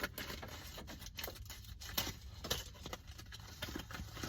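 Packaging being opened by hand: irregular tearing, crinkling and rustling with scattered clicks.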